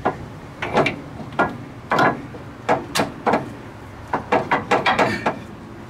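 Irregular sharp metallic clinks and knocks from tools and parts being worked by hand under a car at the steering gear, about a dozen, with a quick run of them near the end.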